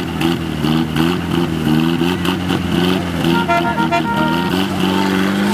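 Off-road 4x4 pickup's engine revving up again and again as it works in deep mud, its pitch rising in short repeated sweeps. A brief high tone joins in about three and a half seconds in.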